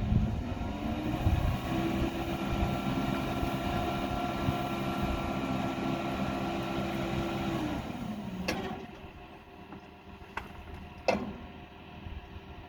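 An engine running, rising in speed about a second and a half in, holding steady, then dropping back around eight seconds in. A few sharp metallic-sounding knocks follow near the end.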